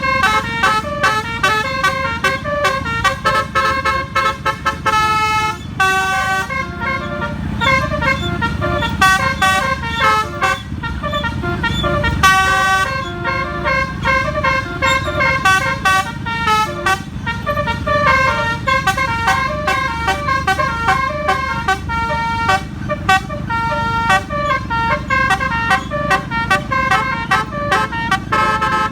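Bus telolet air-horn module (Basuri type) playing a fast tune of short horn notes that change pitch several times a second, without a break. A steady low rumble of engine and road noise runs underneath.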